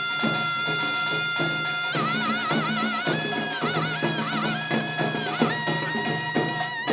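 Korean traditional music: a high, reedy wind instrument holds one long note, then plays wavering, ornamented notes over drum strikes.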